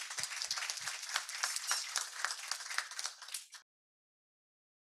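Audience applauding, many hands clapping together; the applause cuts off abruptly about three and a half seconds in.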